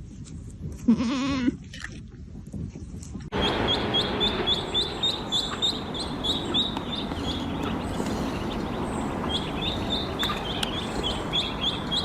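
A goat bleats once, a short quavering call about a second in. About three seconds in, a rapid string of short high chirps begins over a steady noisy background and keeps going.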